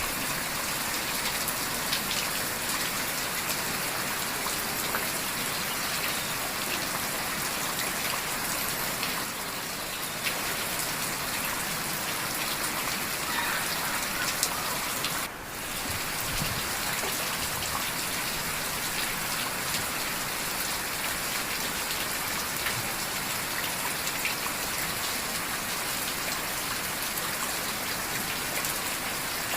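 Heavy rain falling steadily, a dense patter of raindrops that briefly dips in level about halfway through.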